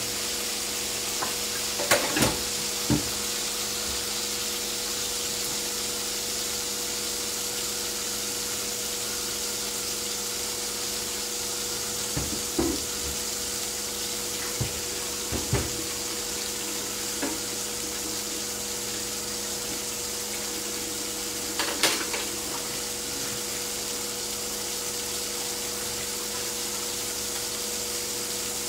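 Onions and garlic sizzling as they fry in a pan, a steady hiss over a constant low hum. A few short knocks of cookware come about two seconds in, around twelve to sixteen seconds, and again near twenty-two seconds.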